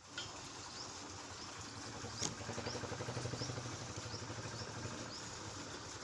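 Outdoor ambience with a small animal's short rising chirp, repeated about every two-thirds of a second, over a steady noisy background. There is a brief fast rattle about halfway through.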